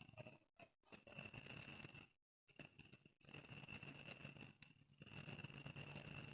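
Near silence: faint room tone with a steady high-pitched whine and a low hum, cutting out to silence several times.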